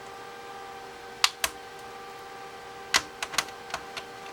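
Sharp clicks of an iPod Classic's case being pried open, its retaining clips snapping loose: two clicks just over a second in, then a quick run of about five near the end.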